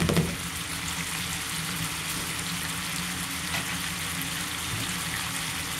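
Scallops and chorizo frying in oil and garlic butter in a frying pan: a steady sizzle, bubbling away nicely.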